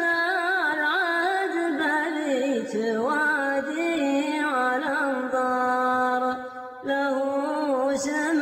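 Background music: a solo voice singing a slow, ornamented chant-like melody, with a short break about six and a half seconds in.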